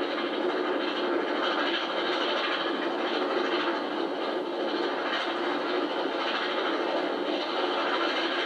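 Steam trains running side by side at speed, heard from a carriage window: a Victorian Railways R class steam locomotive working hard on the parallel track beside the moving train, a steady rushing rumble of exhaust, wheels and wind. It is replayed through a television's speaker, so the sound is thin, with no deep bass.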